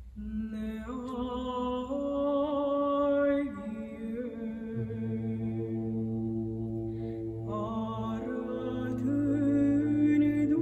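A solo woman's voice chanting Byzantine (psaltic) church chant, holding long, slowly ornamented notes. From about halfway through, a steady low drone note sounds beneath the melody.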